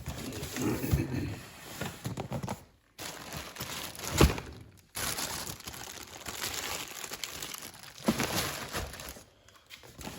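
Packaging rustling and crinkling as the contents of a tool kit box are unpacked by hand, in stretches with short pauses. There is a sharp knock about four seconds in, the loudest sound, and a lighter one near the end.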